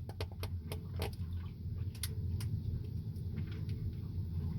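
Hand wire crimping tool being squeezed onto an insulated wire connector in its red jaw slot: a string of irregular sharp clicks and ticks, the loudest at the very start, over a steady low hum.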